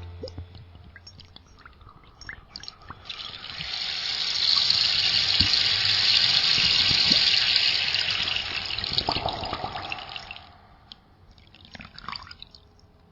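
Water dripping, then a stream of rushing, pouring water that swells up about three seconds in and fades away near ten seconds, followed by a few more drips and small splashes.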